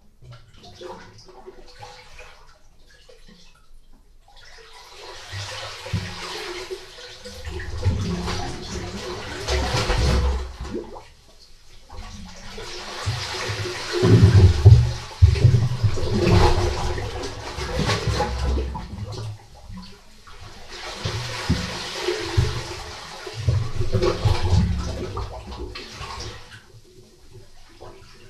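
Sea swell surging into and draining out of a rock cave at the water's edge, rushing and gurgling with low thumps. It comes in three long surges of several seconds each, separated by short lulls, like slow breathing.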